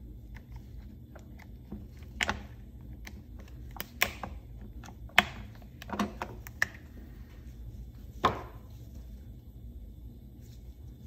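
Scattered sharp metal clicks and light knocks of a hand tool and a circlip being worked at the wrist pin of a chainsaw piston. There are about six of them, irregularly spaced, the sharpest about five seconds in.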